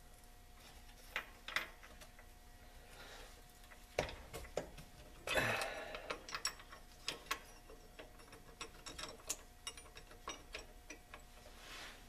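Hand ratchet wrench clicking in short strokes and metal nuts and tools clinking as the air spring's bracket nuts are run down, with one louder clatter of metal about five seconds in.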